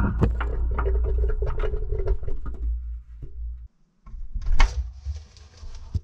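Front-loading washing machine drum coming off its spin: a low rumble with a string of clicks and knocks from things inside the drum, which cuts off about three and a half seconds in. Then come scattered clicks and one sharper knock.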